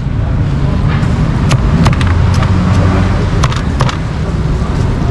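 Steady low engine rumble of road traffic running close by, with scattered sharp knocks of a cleaver on a chopping block.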